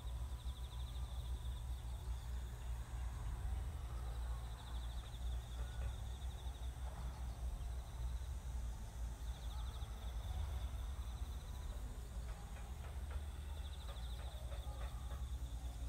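Rural ambience: an insect trills in rapid high pulses, in stretches every few seconds, over a steady low rumble, with faint scattered knocks and clatter.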